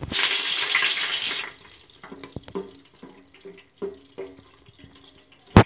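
Bay leaves and whole spices sizzling in hot oil and ghee in a steel pot, a loud hiss that fades after about a second and a half. Then quiet stirring with light scrapes, and a sharp clink of the spoon against the steel pot near the end.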